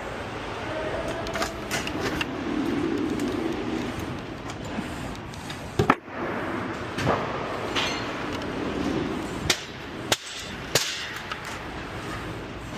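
Demolition work: a few sharp knocks and bangs, the loudest about halfway through, over a steady background noise.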